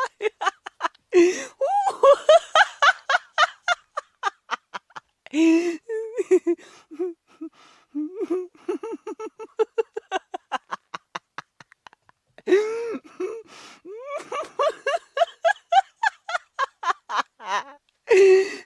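A person laughing hard: long runs of rapid, high-pitched ha-ha pulses, about five a second, broken four times by loud gasping in-breaths.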